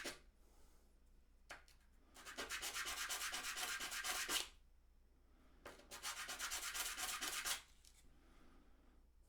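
Wooden chess piece being sanded by hand, with two spells of quick back-and-forth strokes about two seconds each, working off a burn mark in the wood.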